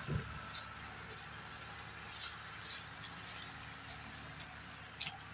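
Farm tractors' diesel engines running steadily as they pull a heavily loaded sugarcane trolley, with a short low thump right at the start.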